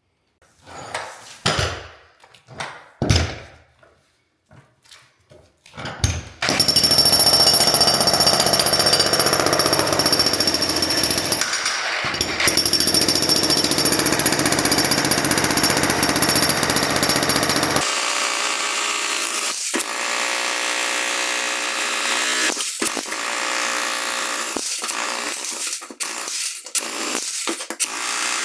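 A few separate knocks, then a jackhammer starts about six seconds in and runs continuously, breaking up a saw-cut concrete slab. Past the middle the sound suddenly thins, losing its deep low end.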